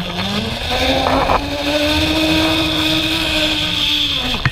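Zip-line trolley pulleys running along a steel cable: a whine that rises in pitch as the rider picks up speed, holds steady over a rushing hiss of wind, then falls and cuts off near the end as the rider slows into the landing platform.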